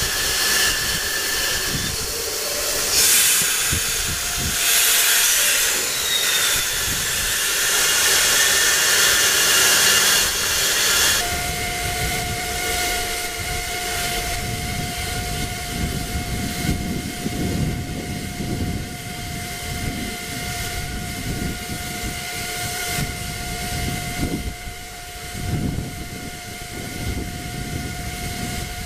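Narrow-gauge steam locomotive standing with steam hissing loudly in strong surges for about the first ten seconds. The hiss then drops, leaving a steady high tone over low rumbling.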